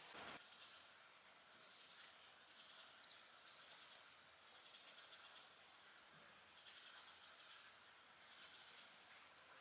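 Faint, high chirping trills in about seven short bouts, each a rapid run of pulses lasting under a second, over a faint steady background hiss.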